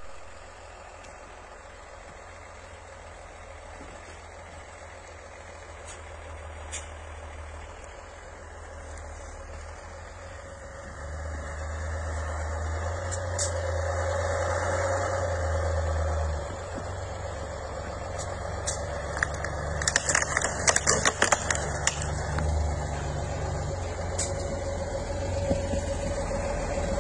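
Off-road 4x4's engine running as it climbs a snowy track, growing louder as it approaches. A burst of snapping and crunching under the tyres about twenty seconds in.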